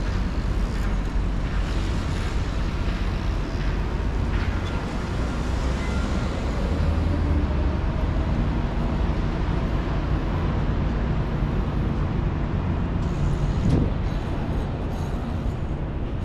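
Steady downtown street traffic noise: cars passing with a continuous low rumble of engines and tyres.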